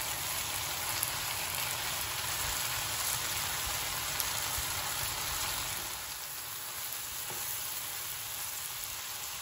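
Beef, mushrooms and peppers sizzling steadily in a frying pan, with the dish nearly done. Near the end a wooden spoon stirs through the pan.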